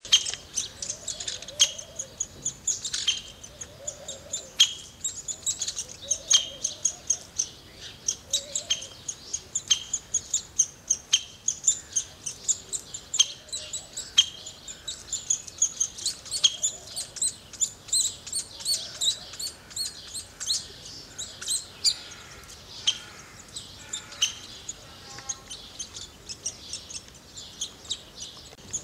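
Small birds chirping: a rapid, continuous run of short, high chirps, with sharper, louder calls standing out every second or so.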